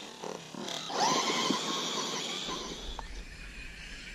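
RC buggy's motor revving up into a high whine about a second in, holding and then slowly easing off, with a sharp click near the three-second mark.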